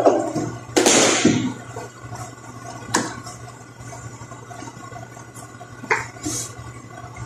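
Bottles and small altar items being handled and set down on a cloth-covered table: a few separate knocks and clinks, the loudest about a second in with a short rush after it, and one near the end as a bottle is placed down, over a steady low hum.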